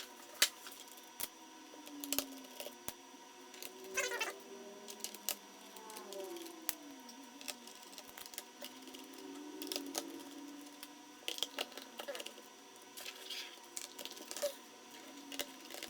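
Scattered small clicks, taps and scrapes of tools and plastic on a laptop's back cover during disassembly, with a few faint squeaks.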